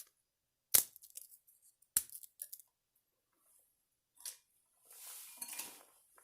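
A loaf of bread broken by hand: two sharp cracks about a second apart, each followed by a few small crackles. Near the end comes a soft, hissing trickle of wine poured into a cup, lasting about a second.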